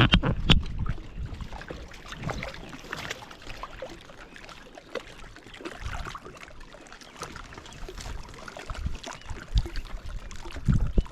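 Water splashing and trickling around a kayak, with scattered small knocks and clicks. There is louder low rumbling near the start and near the end.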